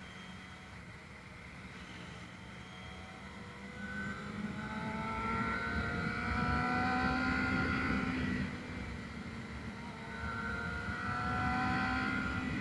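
Yamaha FZ250 Phazer inline-four engine accelerating under load, its pitch rising steadily for several seconds, falling back about eight seconds in at a gear change, then rising again.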